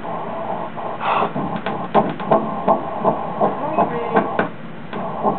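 Fetal heartbeat played through an ultrasound machine's Doppler speaker: quick, even pulsing beats, about two and a half to three a second, starting about a second in.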